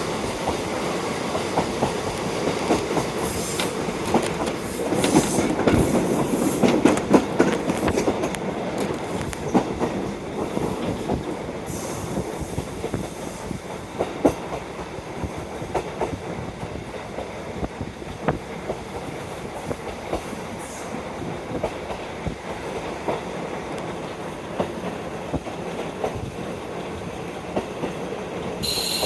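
KiHa 40 diesel railcar running, heard from inside through an open window: wind noise and the clickety-clack of wheels over rail joints. It is louder for the first several seconds and then quieter. Just before the end a high steady squeal sets in.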